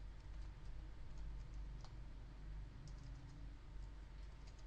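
Faint, irregular keystrokes on a computer keyboard, a dozen or so spread unevenly, over a low steady hum.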